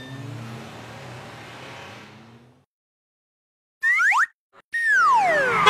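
Cartoon sound effects: a short ding, then a car engine effect for about two and a half seconds, rising slightly in pitch. After a pause come a quick upward swoop and a long falling glide.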